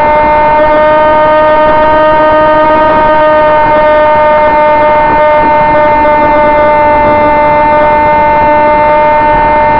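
Electric motor and propeller of a Sonic Modell AR Wing FPV plane whining loudly at a steady pitch under held throttle, heard from the onboard camera over a rush of wind noise.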